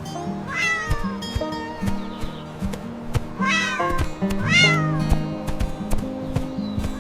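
A cat meowing three times, each call falling in pitch, over background music with sustained notes.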